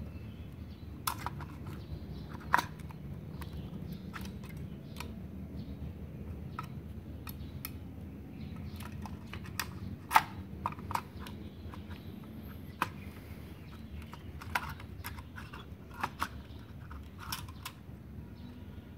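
Hard plastic clicks and knocks of a three-phase magnetic contactor being reassembled by hand, its housing and contact block pressed and fitted back together. The clicks are scattered, the sharpest about ten seconds in, over a steady low hum.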